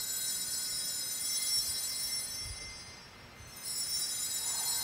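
Small altar bells ringing at the consecration, a high shimmering sound that fades away about three seconds in and picks up again near the end.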